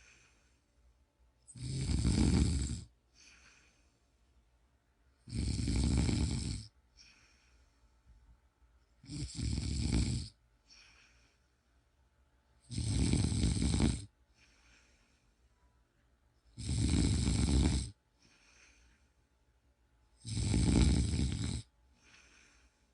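A person snoring in a steady rhythm: six loud snores, each a little over a second long, about every three and a half to four seconds, with faint breaths between them.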